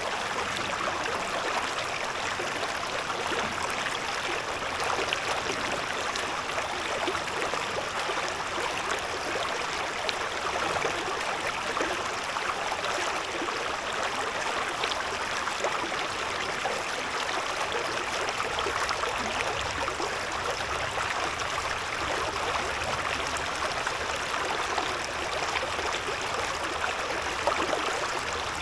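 A shallow river babbling and gurgling over stones, a steady, even flow of water.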